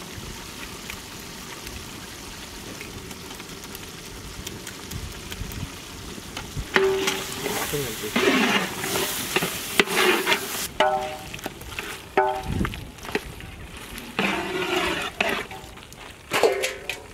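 A long metal spatula stirring thick nut paste into boiled mutton in a large metal cooking pot, scraping and knocking against the pot in irregular bursts with some squeaky, ringing scrapes from about seven seconds in. Before that only a faint steady hiss.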